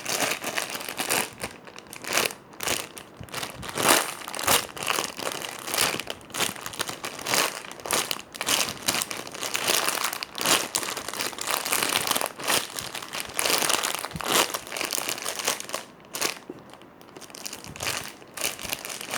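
Dense, irregular crackling handling noise as a unicorn ice cream squishy toy is squeezed and turned in the hands.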